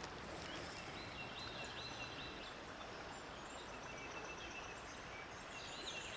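Faint steady rush of river water, with a bird singing a quick series of short, repeated high notes about a second in and again near the end.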